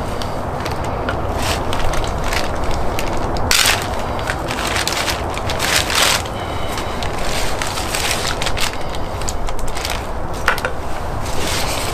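Scissors cutting off a pheasant's feet: a run of irregular crunching snaps as the blades bite through leg bone and joint, over a steady low rumble.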